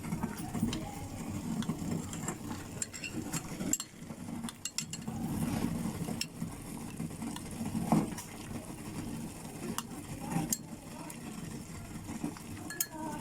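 A spoon stirring grated lemon zest in oil in a pan, with a steady scraping and occasional clinks of the spoon against the pan.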